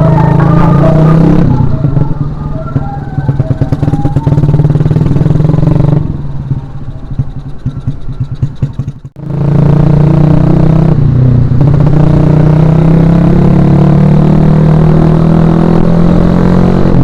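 Suzuki Shogun Axelo R motorcycle's single-cylinder four-stroke engine heard while riding: running hard at first, easing off to a quieter, lower note for several seconds, a brief drop-out about nine seconds in, then pulling loud and steady again with its pitch slowly rising.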